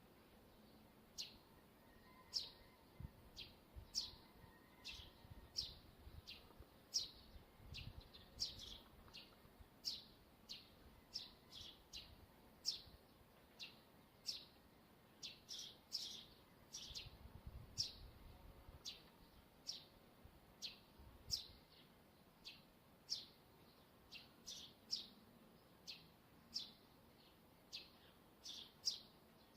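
Wire on a TV antenna squeaking in the wind: short, high squeaks that fall in pitch, one or two a second at irregular spacing. A few low rumbles come and go.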